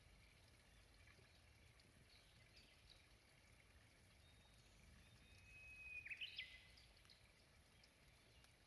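A songbird sings one phrase about five seconds in: a held whistled note, then a quick run of notes up and back down, ending on a lower held note. It sits over faint outdoor background noise.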